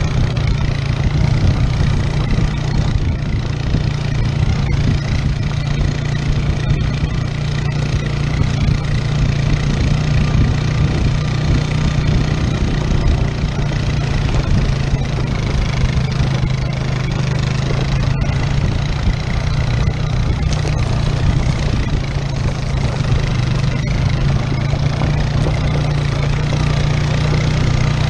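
ATV engine running at a steady drone under load while it tows a broken-down dirt bike on a strap along a dirt trail.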